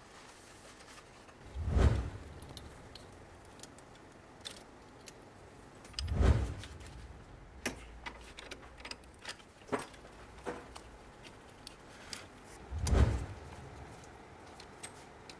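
Light metallic clinks and clicks of hand tools working a brake line fitting: an 11 mm flare nut wrench on the hose union and a plastic brake line clamp being fitted, with three dull thumps spread through.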